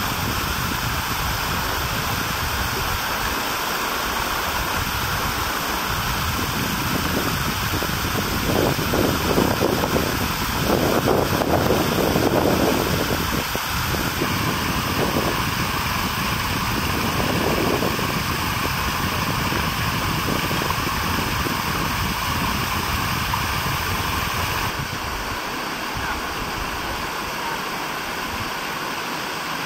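Steady rushing noise of flowing or falling water. It swells louder from about nine to thirteen seconds in and eases slightly near the end.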